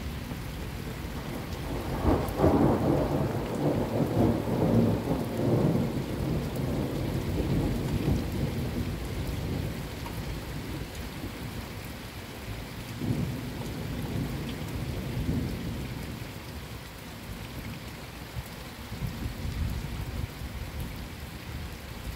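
Thunder rolling over steady rain. A long, loud rumble builds about two seconds in and lasts several seconds, and weaker rolls follow near the middle.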